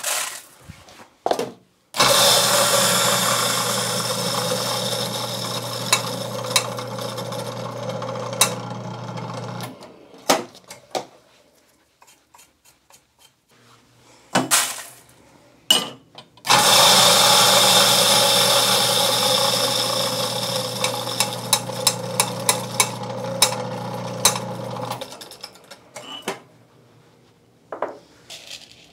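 Grindmaster 890 commercial coffee grinder grinding beans twice, each run about eight seconds. Its motor hum and the grinding noise are loudest as each run starts and fade as the dose runs through. Short clicks and knocks of handling come between and after the runs.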